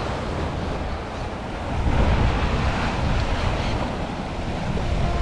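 Sea surf washing against rocks, with wind buffeting the microphone. The wash swells louder about two seconds in.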